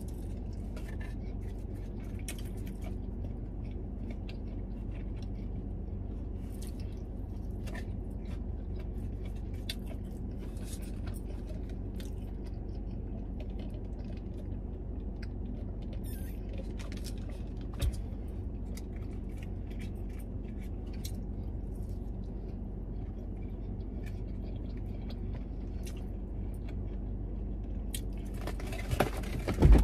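Steady low hum inside a parked car's cabin, with faint scattered clicks and rustles of someone eating fried chicken strips from a cardboard box. A single short knock comes about two-thirds of the way through, and louder handling noises come near the end.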